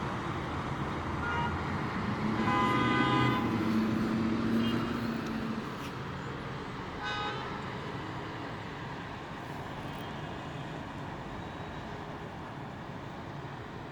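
Road traffic running steadily, with a horn tooting for about a second, about two and a half seconds in, and a shorter toot near seven seconds.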